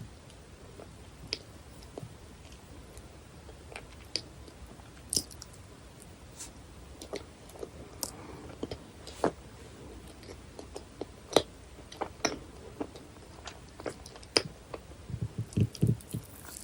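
Close-miked chewing of dense, fudgy cheesecake: soft, sticky mouth sounds broken by scattered sharp clicks, with a quick run of low knocks near the end.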